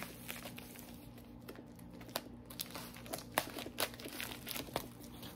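Scissors cutting open a padded bubble mailer, with crinkling of the envelope and a scatter of small sharp snips and clicks.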